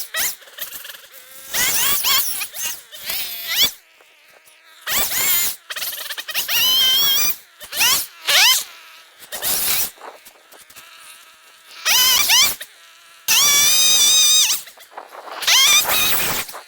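Power saw cutting tree limbs, its motor revving up to a high-pitched buzz in about ten short bursts and dropping back between them.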